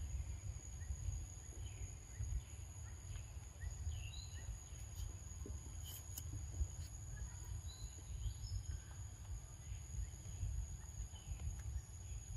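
Outdoor forest ambience: a steady high-pitched insect drone, scattered short bird chirps and a low, uneven rumble.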